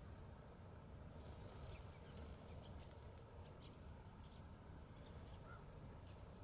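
Near silence: faint outdoor ambience with a low steady rumble, a few faint ticks and a short faint peep near the end.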